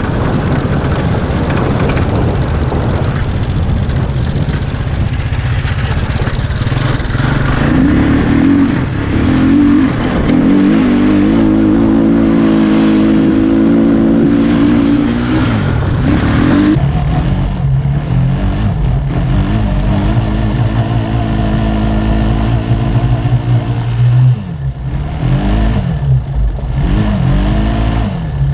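Small go-kart engine running under throttle, with wind and road noise over it. The engine pitch holds fairly steady through the middle, then the revs rise and fall several times near the end.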